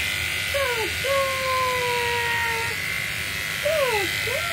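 Cordless electric pet clipper running against fur, its motor hum steady but dipping sharply in pitch and recovering a few times, twice near the end.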